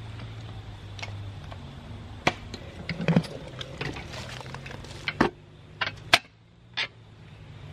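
Two-handled clamshell post hole digger jabbing into hard, compacted soil: a run of irregular sharp knocks and scrapes, a few much louder than the rest. A steady low hum lies underneath.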